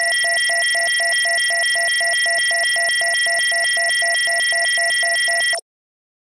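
Loud electronic tones: a steady high whine with a lower tone beeping rapidly over it, about five or six beeps a second, cutting off suddenly near the end.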